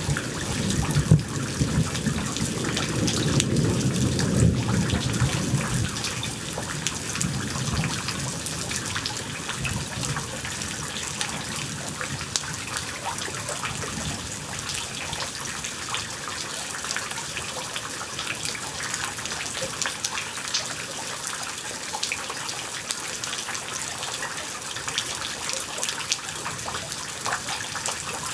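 Steady rain falling, with a low rumble of thunder at the start that fades away within about eight seconds.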